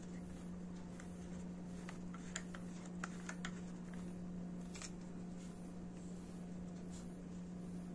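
Short plastic clicks and taps, a handful between about two and five seconds in, as a small plastic tripod is screwed onto the base of a smartphone gimbal handle. A steady low hum runs underneath.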